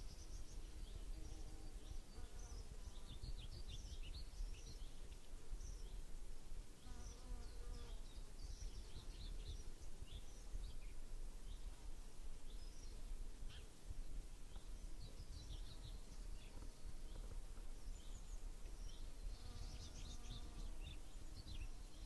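A flying insect buzzing past three times, with many short, high chirps scattered throughout over a faint low outdoor rumble.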